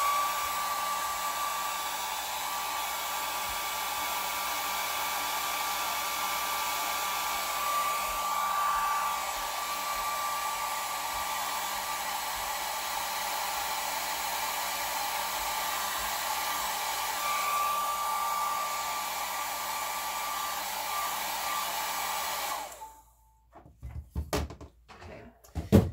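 Handheld hair dryer running steadily with a high whine over a rushing hiss, blowing on a canvas to dry freshly applied paint. It switches off near the end, followed by a few knocks.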